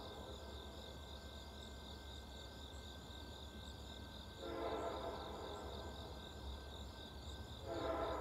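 Faint, distant Nathan K5LLA five-chime locomotive air horn on a BNSF freight: a short blast about halfway through, then a long blast starting near the end. The horn is 'sick', with its 1L bell dead. Crickets chirp steadily underneath.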